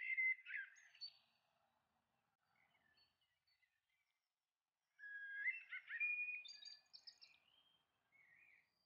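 A songbird singing: a short burst of whistled chirping notes at the start, then after a few seconds of quiet a longer phrase of whistles and quick trills.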